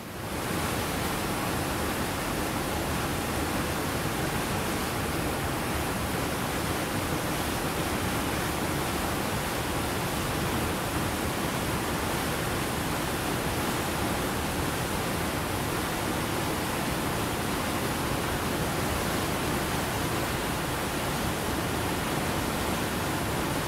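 Fast-flowing creek rushing over rocks: a steady, even rush of water.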